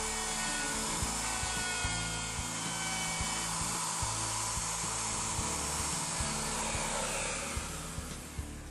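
Handheld router running at speed, its bearing-guided flush bit cutting a hinge recess into wood; the steady cutting noise fades near the end.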